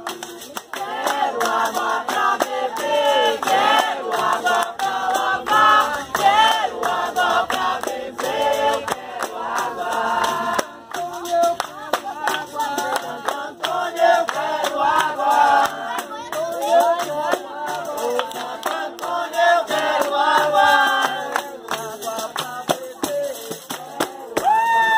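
A group of people singing together with hand-clapping, accompanied by a berimbau and a tambourine.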